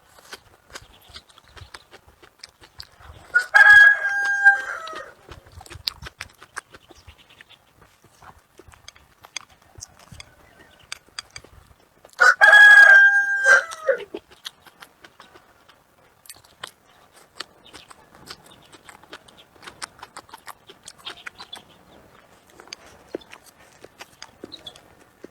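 A rooster crowing twice, about nine seconds apart: each crow is loud, held and falling off at the end. Faint clicks of eating come in between.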